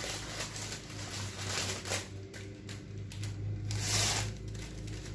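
Paper crinkling and rustling as nuts are tipped off a paper sheet into a saucepan, loudest about two and four seconds in, over a steady low hum.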